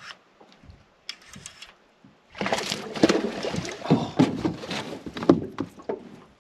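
Splashing at the water's surface beside an aluminum fishing boat as a hooked smallmouth bass thrashes close in, with a burst of loud, choppy splashing starting a couple of seconds in and lasting about three and a half seconds.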